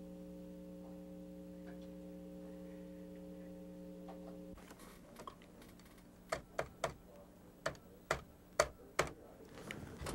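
Push buttons on a desk telephone pressed one after another to dial, a run of sharp clicks about six to nine seconds in. Before them a steady low hum runs and stops about four and a half seconds in.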